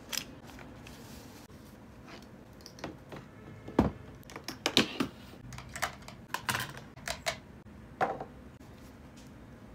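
A click at the very start, then after a pause a run of light clicks and knocks from about three to eight seconds in as a laptop charger cable is handled and a computer mouse is set down on a desk.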